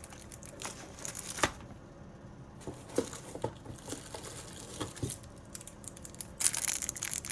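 Packaging rustling and crinkling as nail products are handled and unpacked, with scattered small clicks and a louder rustling, tearing burst near the end.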